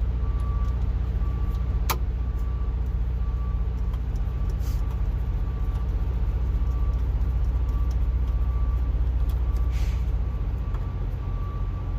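A steady low engine drone, with a high electronic chime repeating in short even pulses over it, and a single sharp click about two seconds in.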